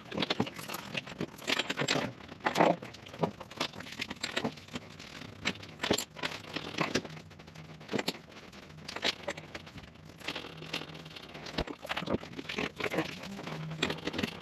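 Handling noise from a jon boat's nylon tent-style cover and stainless steel tube frame: rustling and crinkling fabric mixed with many short knocks and scrapes as the frame is gripped and moved.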